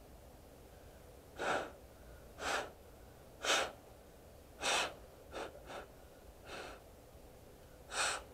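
A person's short, sharp breaths close to the microphone, about eight in all at uneven intervals of roughly a second.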